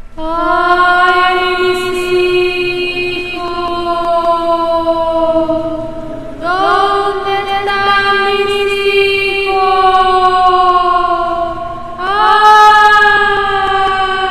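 Wordless vocal chant: three long held notes, each rising briefly at its start and then sinking slowly in pitch. The second note comes in about six seconds in and the third about twelve seconds in.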